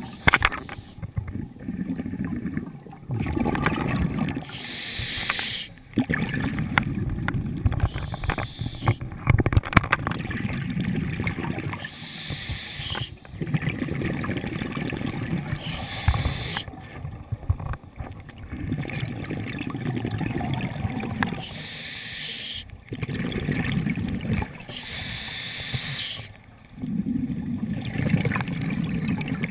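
Scuba diver breathing through a regulator, heard through a GoPro's underwater housing: a rush of exhaled bubbles about every three to four seconds, with short pauses between, and a few sharp clicks about ten seconds in.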